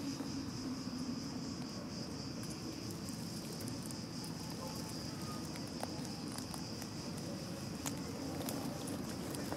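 A steady, high-pitched insect chorus over a low, steady rumble, with a few faint scattered clicks.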